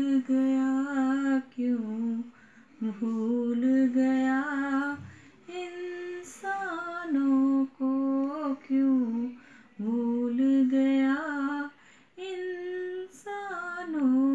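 A woman singing a slow, simple melody solo, in short phrases with brief pauses between them.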